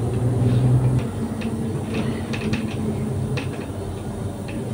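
Inside a moving city bus: the engine drones, with a strong low note that drops away about a second in, and scattered clicks and rattles from the body. Under this runs the hiss of escaping air that sounds in the cabin only while the bus is driving, a fault the driver says the bus will go in for repair over.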